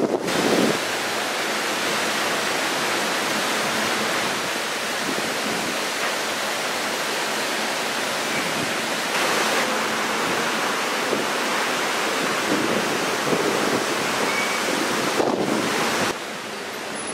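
Steady rushing of a ship's churning wake and a wind-whipped, whitecapped sea, heard from the open deck with wind on the microphone. It drops a little in level near the end.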